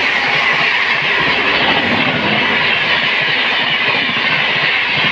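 Indian Railways train running on the track: a loud, steady rush of wheel and carriage noise with a clattering rumble underneath.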